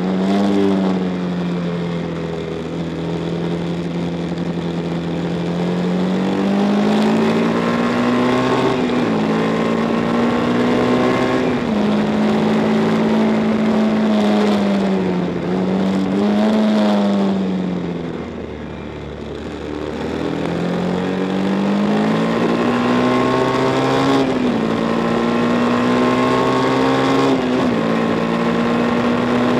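1962 Matchless G50 single-cylinder racing engine at race speed, heard from the bike itself: the revs climb and then drop back sharply at each upshift, several times over. About 18 seconds in the throttle is closed and the engine note falls and quietens for a corner, then it picks up again.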